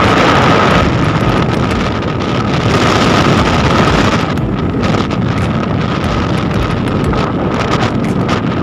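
Wind buffeting the microphone over the road and engine noise of a vehicle moving at speed, with a steady high whine underneath.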